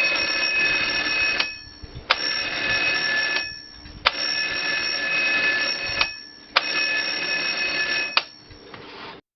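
Rhythm 7RA014 alarm clock's alarm ringing in repeated bursts of about a second and a half, separated by short pauses and marked by sharp clicks, about five bursts in all, the last one fading.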